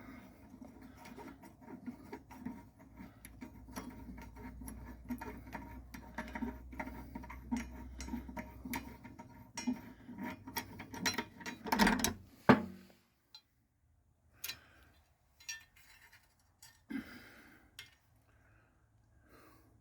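Small metal clinks and taps from mower deck parts being handled, over a low steady hum, with a louder clunk about twelve seconds in. After that only a few faint clicks.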